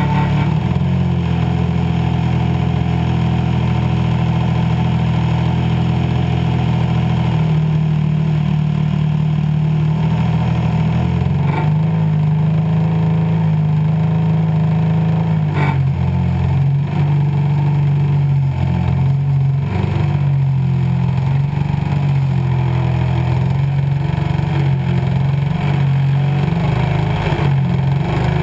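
Desert Aircraft DA-100 twin-cylinder two-stroke gasoline engine of a large RC float plane, heard close up beside its spinning propeller, running continuously. Its note shifts a few times as the throttle changes, with a couple of brief knocks partway through.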